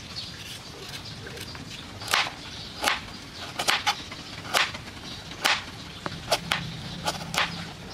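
Kitchen knife chopping through a raw carrot and striking a cutting board: about a dozen sharp, irregularly spaced chops that begin about two seconds in.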